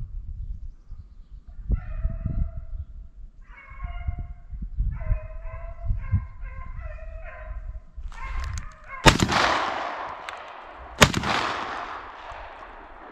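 Hunting hounds baying in short repeated notes, then two shotgun blasts about two seconds apart, each with a long echoing tail, fired at a deer the hounds are running.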